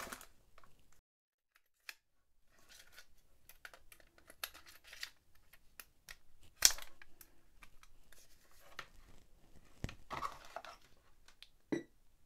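Hands handling a Panasonic SJ-MJ50 portable MiniDisc player: a run of light plastic clicks and scrapes with rustling between them, one sharp click a little past halfway and another near ten seconds in, as a battery is fitted and the player is set going.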